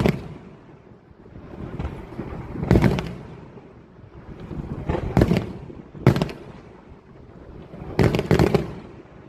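Aerial fireworks shells bursting: a series of sharp bangs every one to three seconds, each trailing off in a rolling echo, with several bursts close together near the end.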